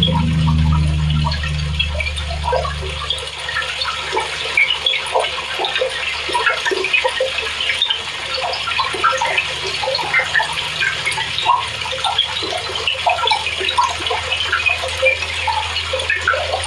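Speed Queen TC5 top-load washer filling: water pouring and splashing into the tub over a low, steady hum that is louder for the first three seconds or so and then drops.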